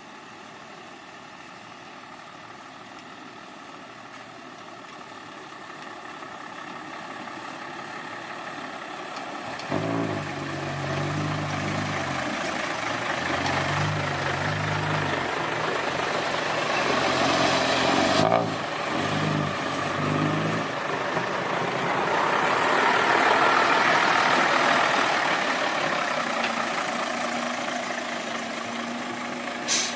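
Diesel engine of heavy earthmoving machinery working, growing louder, with a pulsing, shifting engine note from about a third of the way in. A broad rush of engine noise swells and fades later, and the engine settles to a steady idle near the end.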